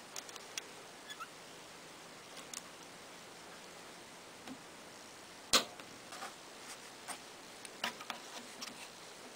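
Small metal clicks and ticks of hand tools, pliers and a hex key, working the machine screws that hold a teletype main-shaft ball bearing, with one sharper click a little past halfway.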